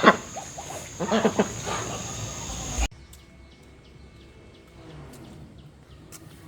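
An animal calls once, about a second in, over a noisy background. The sound cuts off abruptly about three seconds in, leaving only faint background sound with a few light clicks.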